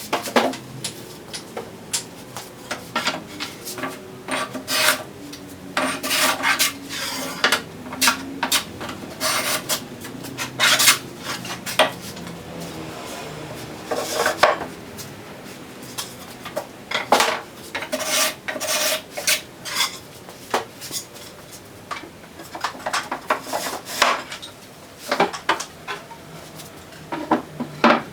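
Wooden parts of a mortise-and-tenon piece being handled and fitted together: irregular knocks with scraping and rubbing of wood on wood.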